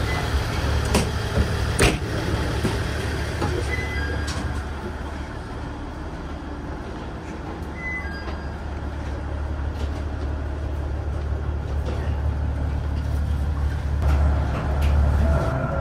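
Limited express train running, heard from inside the carriage: a steady low rumble with running noise, and two sharp clicks about a second in.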